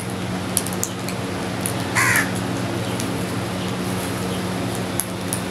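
House crow giving a single caw about two seconds in, over a steady low hum and hiss, with a few faint ticks.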